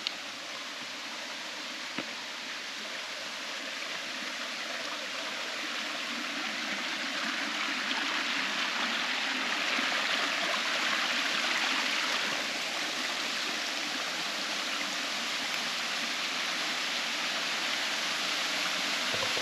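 Rushing water of a mountain stream, a steady noise that grows louder around the middle and eases a little toward the end.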